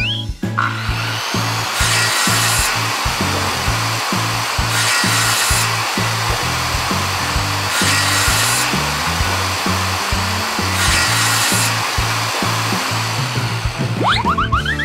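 Table saw running and cutting through wooden planks, the cutting noise growing louder four times about three seconds apart, over children's background music with a steady bass line. Near the end come a few quick rising glides like a cartoon whistle.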